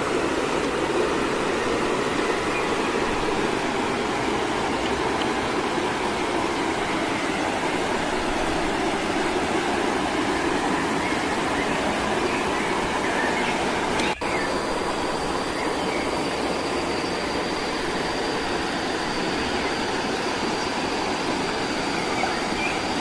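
Steady rush of a rocky stream and small waterfall, interrupted by a brief drop about fourteen seconds in, after which a faint steady high-pitched tone runs underneath.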